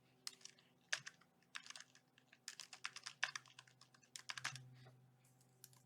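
Typing on a Logitech wireless keyboard: irregular runs of quick, light key taps that stop about four and a half seconds in. The noise is mostly fingertips tapping the keycaps rather than the key mechanism.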